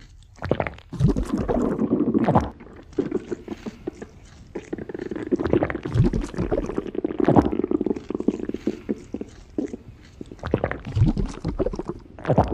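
Stomach rumbling sound effects, irregular and fairly loud, with a few low sounds that slide down in pitch about a second in, midway and near the end.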